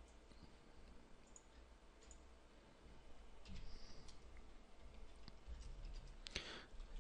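Faint clicks of a computer keyboard as a few keys are typed, with a low hum underneath. A brief rush of noise comes near the end.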